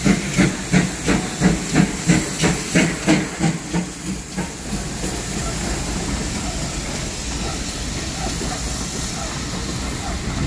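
GWR Saint-class steam locomotive 2999 'Lady of Legend' pulling away with its train, its exhaust beats about three a second fading out over the first four seconds. After that comes the steady rushing noise of its coaches rolling past on the rails.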